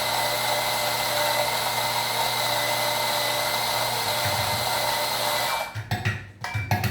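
Built-in burr grinder of a Gemilai 3005G espresso machine running a timed double dose, a steady motor whine with a hum. It cuts off on its own about five and a half seconds in, followed by a few knocks and clicks.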